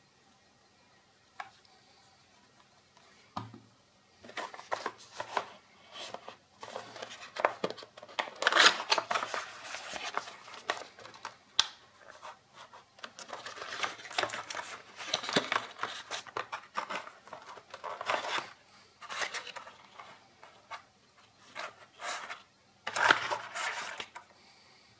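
Cardboard packaging being handled and opened by hand. Starting about four seconds in, there is irregular dry rustling and scraping of the card, with small clicks.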